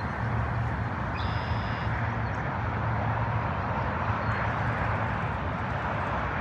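Steady outdoor noise, a low rumble under a hiss, with a short high-pitched call about a second in.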